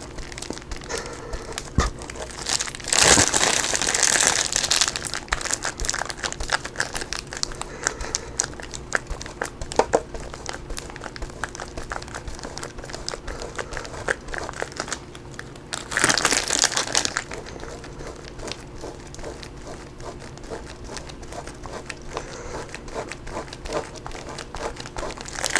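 Block of extra sharp cheddar being shredded on the medium holes of a cheese grater: a continuous run of quick rasping scrapes, louder for a couple of seconds about three seconds in and again around sixteen seconds.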